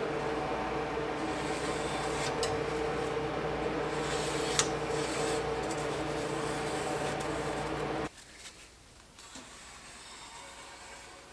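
A marker scratching along a steel straightedge on sheet steel, with light taps, over a steady mechanical hum. The hum cuts off suddenly about eight seconds in, leaving quieter scratching and handling of the metal.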